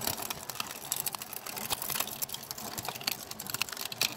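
ReDeTec Protocycler's hand-cranked grinder, its steel cutter discs crunching and snapping 3D-printed plastic scraps. The sound is a dense, irregular run of sharp cracks and clicks.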